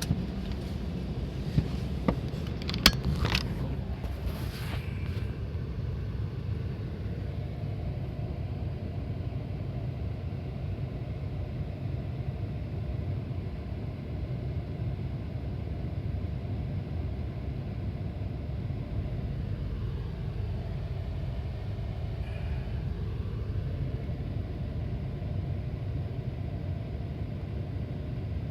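A car driving: a steady low rumble of engine and road noise, with a few sharp clicks and a brief squeak in the first few seconds.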